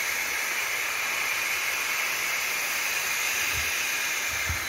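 Air valve on a floating river pump station's steel delivery pipe hissing steadily as it sucks in air. The pump has stopped and the water in the pipe is still running on with its momentum. A few low thuds come near the end.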